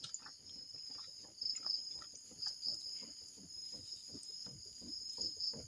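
Light knife knocks on a wooden cutting board, about three a second, over a steady chorus of crickets.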